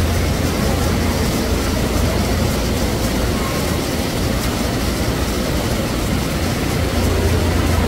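Illuminated fountain jet splashing steadily into its tiled pool: a continuous rush of falling water with a low rumble underneath.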